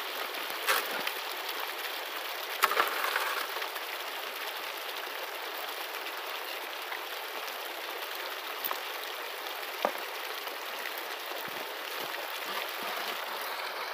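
Water pouring steadily from a pump hose into a Royal high banker and rushing down its metal sluice, with a few sharp knocks near the start and once more about ten seconds in as gravel is worked in the hopper.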